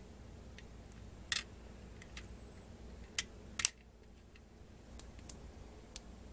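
LEGO Technic plastic pins and beams clicking as they are pressed and snapped into place: a handful of sharp clicks, the loudest two close together a little past the middle, over a faint low hum.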